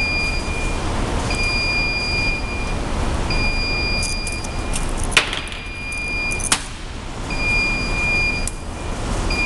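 An electronic beeper sounds a steady high-pitched beep about a second long, repeating about every two seconds, over a constant low background rumble. Two sharp clicks come about halfway through.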